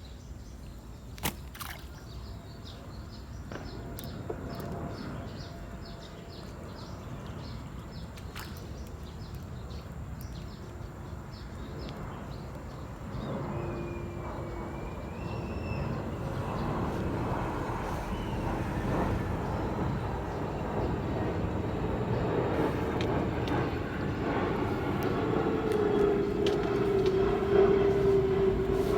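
A train approaching, its low rumble growing steadily louder, with a steady hum rising out of it near the end. There are a few sharp clicks near the start and a short bird chirp midway.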